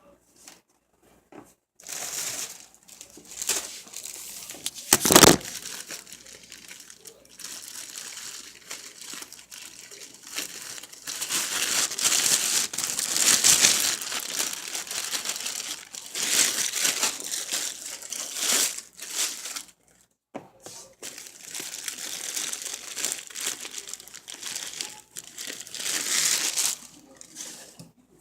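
Plastic packaging crinkling and rustling as it is handled, in long stretches with short pauses, with a single loud knock about five seconds in.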